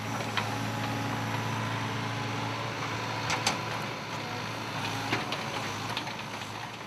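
Excavator engine running steadily with a light whine as its hydraulic grab moves over a pile of cut stones, with a few short sharp knocks.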